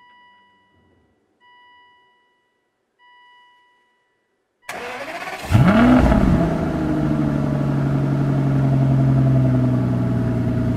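Three short electronic chimes from the 2005 Aston Martin DB9's instrument cluster at key-on. Then the starter cranks briefly, and the 5.9-litre V12 catches with a quick rise and fall in revs before settling into a steady fast idle.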